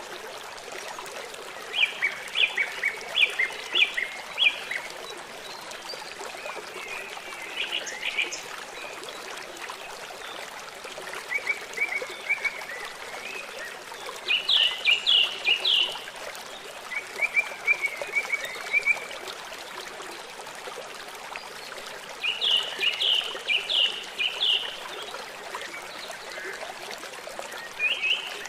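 Songbirds singing short phrases of rapid, stuttered chirps, about seven phrases a few seconds apart, over a steady trickle of running water.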